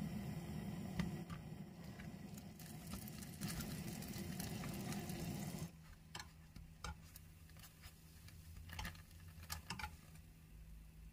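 Kitchen handling noises: scattered light taps and clicks over a low steady hum that cuts off abruptly about halfway through, leaving only occasional taps.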